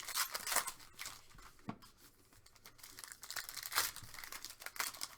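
Trading card pack wrappers being torn open and crinkled by hand, in a string of irregular rustling tears.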